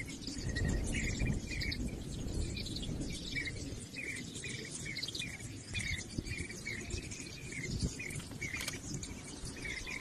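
Birds chirping in short, repeated calls, over a low rumbling background noise that is loudest about a second in.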